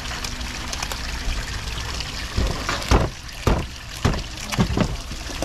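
Water running and splashing, over a steady low hum. From about two seconds in come about six sharp knocks or splashes, roughly one every half second.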